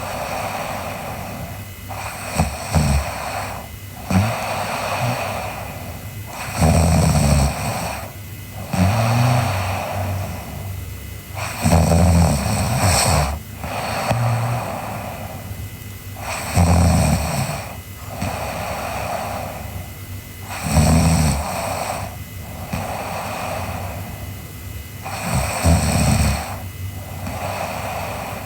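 A sleeping girl snoring in a slow, regular rhythm. There is a low snore on each breath about every four to five seconds, with breathy noise between.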